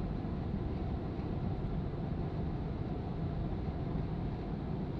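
Gas furnace blower fan running steadily with a low hum. This is the furnace's cooling cycle after being plugged back in, when it runs the fan for 30 seconds to a minute to make sure the heat exchanger is not too hot before it tries to light again.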